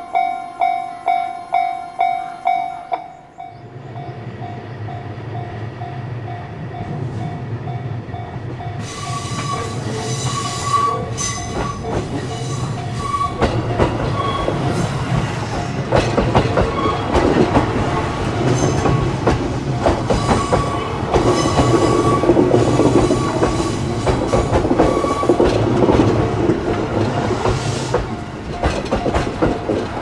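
Level-crossing warning bell ringing in even strokes for about three seconds and then stopping, followed by a JR Ome Line E233-series electric train approaching and passing close by. The rumble of motors and wheels builds up, then wheels clatter rhythmically over the rail joints as the cars go past.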